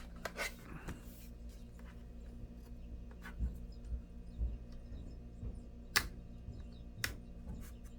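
Plastic pry tool working around a laptop screen's bezel: a handful of sharp, scattered clicks and light taps as the bezel is lifted away from the display.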